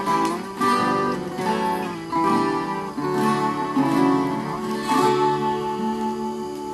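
Acoustic guitar-type string instrument playing, with strummed chords and plucked notes, easing off in loudness near the end.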